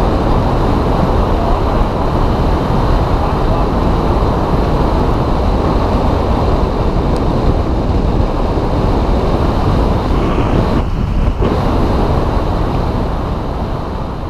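Wind rushing over a helmet-mounted camera's microphone, with tyre noise on asphalt, as a supermoto coasts downhill with its engine off; no engine is heard. The noise is steady and loud, then fades out near the end.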